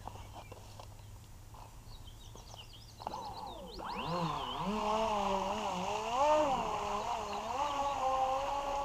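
Motor of a small radio-controlled rescue boat whining as it sets off about three seconds in, its pitch rising and then wavering up and down with the throttle as it runs out across the lake. Birds chirp just before it starts.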